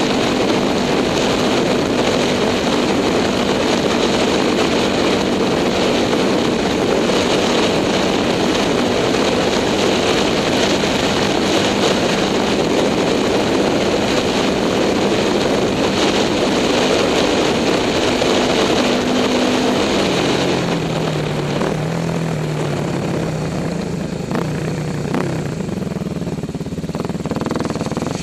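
Kawasaki dirt bike engine running at a steady trail speed, heard from the rider's seat; about twenty seconds in the engine note drops lower and rises and falls as the bike slows, with a few short knocks near the end.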